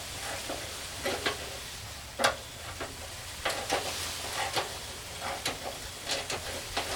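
Irregular metallic clicks and clinks of hand tools and small parts being handled while fitting parts to a pickup's radiator core support, with a louder clink about two seconds in, over a steady low shop hum.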